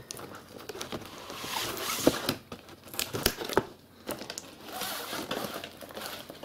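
Glossy plastic firework packaging crinkling and tearing as it is pulled open by hand, with tape being pulled off its side. There are many small clicks throughout and a brief lull just before the end.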